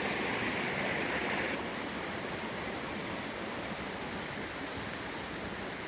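Mountain stream rushing steadily over rocks, a little louder and brighter for the first second and a half before settling to a lower, even rush.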